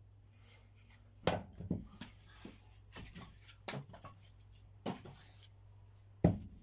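Firewood being handled or split: sharp wooden knocks at irregular intervals, about five in all. The loudest comes about a second in and another just before the end.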